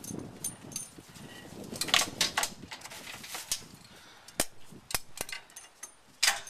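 Irregular sharp metallic clicks and clacks from hardware on a ProPride trailer hitch being handled, with a quick run of three loud clacks about two seconds in and another loud one near the end.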